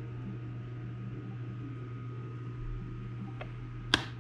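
Steady low electrical hum of mains equipment on a test bench, with a faint thin whine above it. Near the end a single sharp click, the loudest sound, as a hand takes hold of the large black cylindrical unit.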